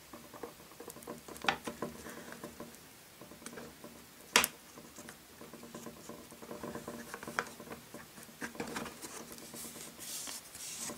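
Fingers pressing and rubbing a glued paper sticker down onto a plastic toy trapdoor: soft scratchy rubbing and light ticks, with one sharp click about four seconds in and a brighter hissing rub near the end.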